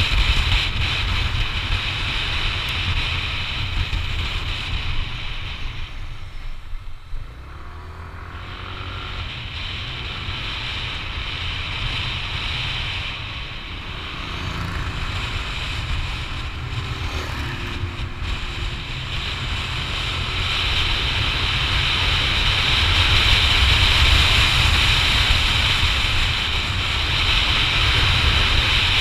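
Wind rushing over the microphone of a camera on a moving Yamaha NMAX scooter, with the scooter's engine and road noise under it. The rush dies down about seven seconds in, then grows louder again over the last part.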